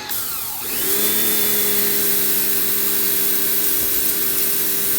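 Mrliance 3500 psi electric pressure washer running with the 0-degree nozzle spraying. The motor and pump, slowed at the start, spin back up with a rising hum about a second in, then run steadily over the hiss of the spray.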